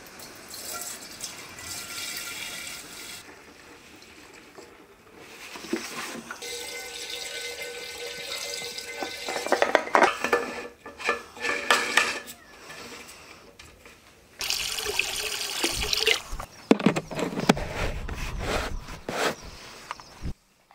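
Liquid pouring and splashing into a plastic tank as a garden hose fills it with water. It comes in several short takes that start and stop abruptly.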